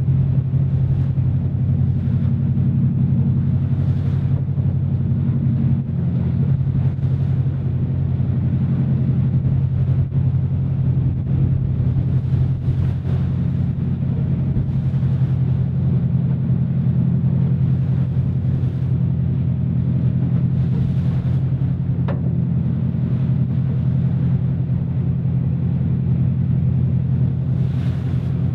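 Boat engine running steadily under way, a loud low drone, with water rushing past the hull and a few brief splashes.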